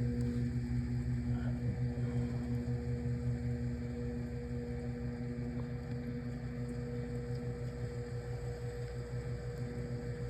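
Microwave oven running, heating a banana peel to the point of smoking: a steady electrical hum over a low, even throb.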